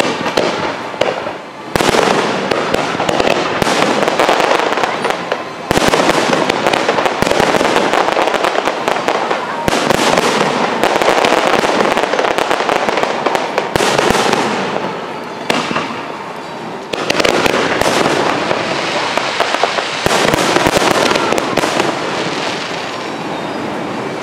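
Fireworks display: a dense, loud stream of aerial shell bursts and crackles in waves, with brief lulls about two seconds in, about six seconds in, and around sixteen seconds.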